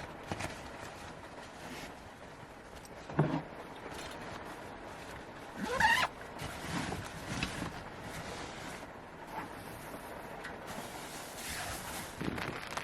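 Steady rain noise, broken by a single knock about three seconds in and a short rising squeak about six seconds in.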